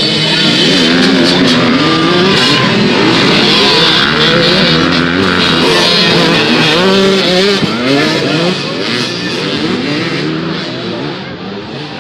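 Several youth off-road racing engines revving together, with many overlapping pitches rising and falling. Loudest through the first half, easing somewhat after about eight seconds.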